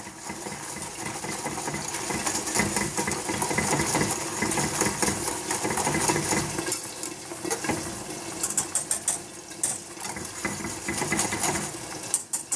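Wire whisk stirring milk in a stainless steel pot, scraping and clinking against the metal in a fast, uneven run of scratchy clicks. The strokes are dense for the first half and come more scattered after that.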